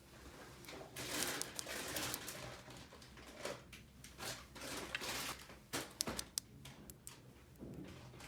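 Small plastic toy pieces and packaging being handled: irregular rustling with light knocks, and a few sharp plastic clicks about six seconds in.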